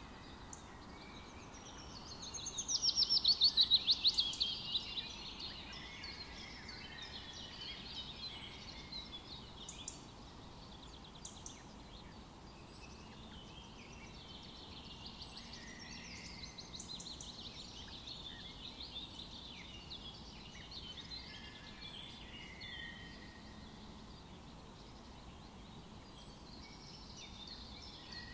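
Wild birds calling and singing in hillside scrub, many short chirps and trills over a faint steady background hiss. About two seconds in, one bird gives a loud, rapid trill of repeated notes lasting a few seconds, and a faint high note recurs every few seconds.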